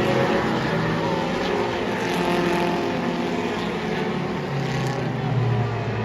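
Several stock car engines running together around a short track, their pitches rising and falling as the cars circle.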